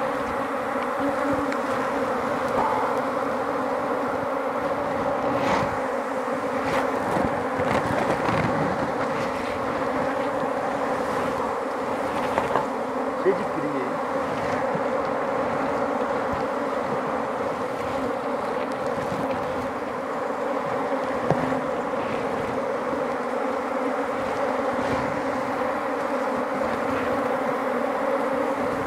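Many Africanized honey bees buzzing loudly and steadily around an opened hive, agitated enough to be stinging at the beekeeper's gloves. A few short sharp knocks stand out, a pair about halfway through and one later.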